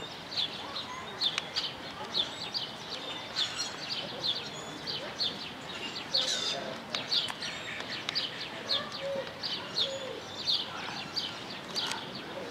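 Small birds chirping over and over, short high notes coming several times a second without a break.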